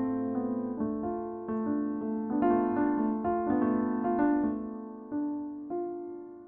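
Background piano music: a slow melody of single struck notes, each fading away.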